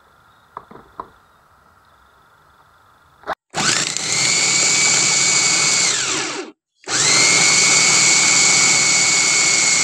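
Electric chopper-type blender running, grinding a chicken, vegetable and ice paste until smooth: a steady high whine that spins up about three and a half seconds in and winds down near six seconds. It starts again about a second later. A few light clicks come before the motor starts.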